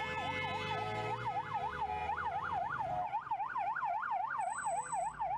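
Ambulance siren in a fast yelp, its pitch sweeping up and down about three times a second. A steady held horn sounds over it for the first second or so.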